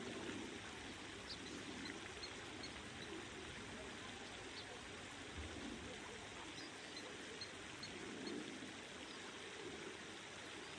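Faint, steady outdoor background hiss, with a few faint, short, high chirps or ticks scattered through it.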